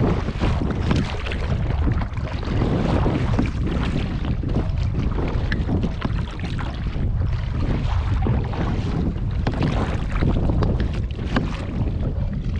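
Wind buffeting the microphone over water splashing and lapping, with frequent short splashes, the sound of being out on a paddle board on the lake.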